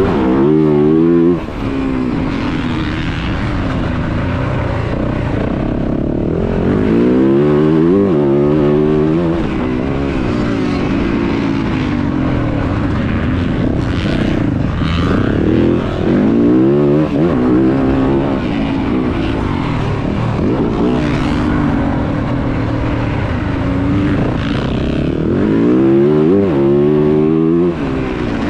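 2023 Yamaha YZ450F's 450 cc single-cylinder four-stroke engine under hard riding, revving up and dropping off again and again as the throttle is opened and closed.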